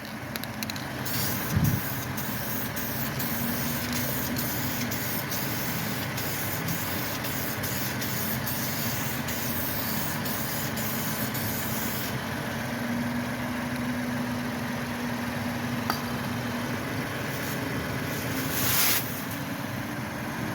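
Aerosol can spraying gloss onto a repaired wheel, a hiss cut into many short regular spurts for about the first twelve seconds, then one more short spray near the end, over a steady engine-like hum.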